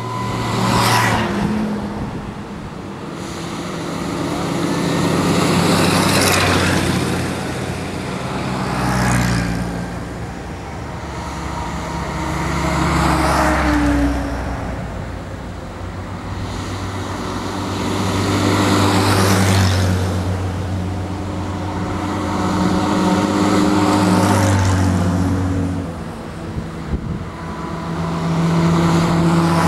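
A column of WWII-era military trucks and jeeps driving past one after another. Each engine swells and fades as it goes by over a continuous low engine drone and tyre noise.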